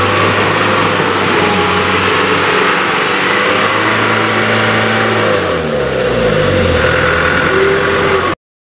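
Engine-like running sound of a Huina radio-controlled dump truck crawling through mud, steady, with the pitch dropping and rising again about five to six seconds in. The sound cuts out abruptly near the end.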